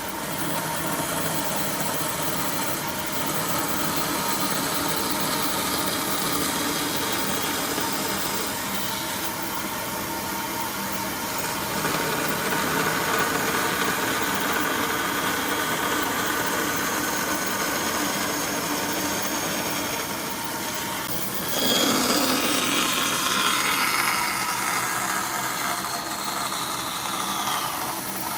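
A handheld power tool running steadily, getting louder with a shift in pitch about three-quarters of the way through.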